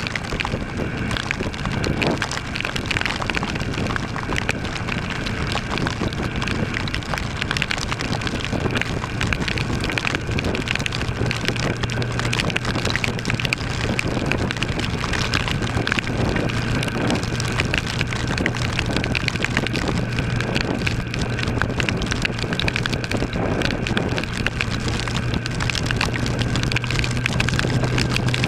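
Torrential rain hitting the microphone as a dense patter of drops over rushing wind, with the steady hum of a 2013 Kawasaki ER-6's parallel-twin engine underneath, steadier from about eight seconds in.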